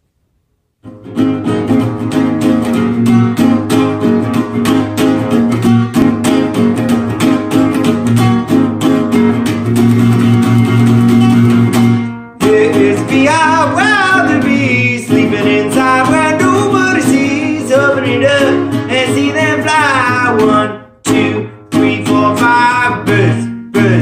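Nylon-string classical guitar strummed in a steady rhythm, starting about a second in. From about halfway, a man sings a children's song over the strumming.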